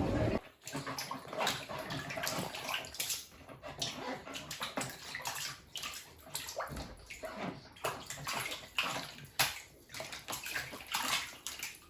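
Water splashing and sloshing in short, irregular strokes.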